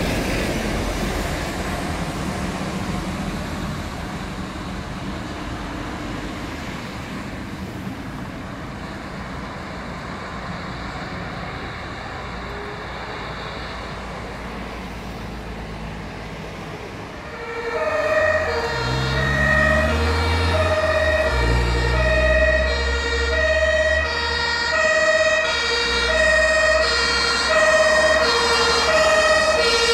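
A fire truck's engine fades as it drives away. From a little over halfway, an approaching fire engine's German two-tone siren (Martinshorn) sounds, alternating between a low and a high note, over its engine running and rising in pitch.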